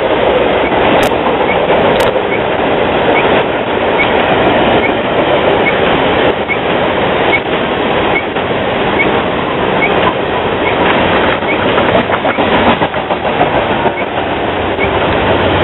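Freight train passing close by: diesel locomotives give way to a long string of coal hopper cars, a steady rumble of steel wheels on rail with a run of clicks as the wheels cross rail joints.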